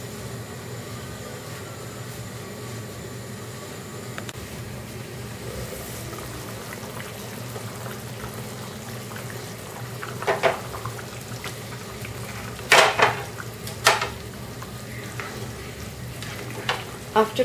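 Curry simmering in a pan, a steady bubbling hiss, then a spatula knocking against the pan several times in the second half as the curry is stirred.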